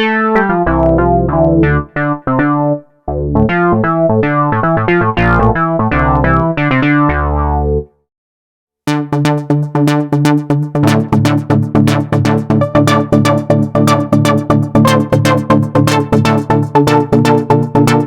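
Arturia AstroLab playing Jupiter-8-emulation synth patches. First come short plucked keyboard notes and chords. After a brief pause about eight seconds in, a fast, rhythmic arpeggiated sequence plays over a steady bass.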